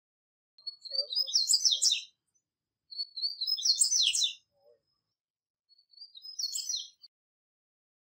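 Male double-collared seedeater (coleiro, papa-capim) singing three short phrases of quick, high twittering notes, the last one softer.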